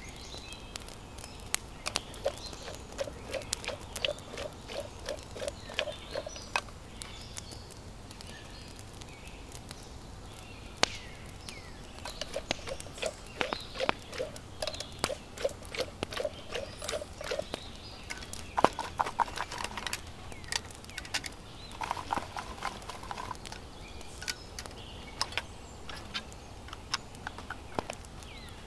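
Wood campfire crackling with sharp, irregular pops. Twice a low pulsing sound repeats a few times a second for several seconds.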